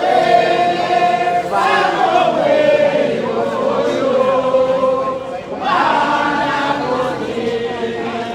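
A group of voices singing together in long, drawn-out held notes, with a new phrase starting about a second and a half in and again near six seconds.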